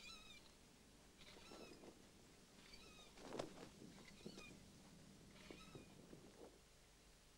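A series of about five short, high-pitched animal calls, each with a wavering pitch, spaced a second or so apart, over the soft rustle of a cotton sheet being handled and folded.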